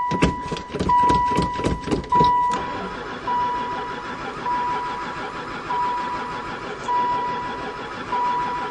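A long-stored van's engine cranking on the starter for about two and a half seconds with a quick even rhythm of compression strokes, then stopping without catching: it never fires, which the owner puts down to no spark. A beeping tone repeats about once a second throughout.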